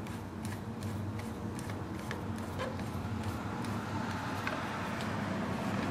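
Irregular light ticks and clicks, a few a second, of a screwdriver turning a screw down into the top of a one-barrel carburetor, over a steady low hum.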